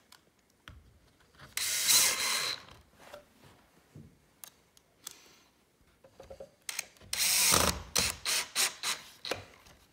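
Cordless drill driving screws into pre-drilled pocket holes in wood. One run of about a second, then a second run about five seconds later followed by several short bursts.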